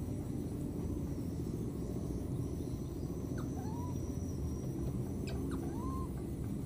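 Baby macaque cooing twice, each a short call that rises and falls, about two seconds apart, over a steady low rumble.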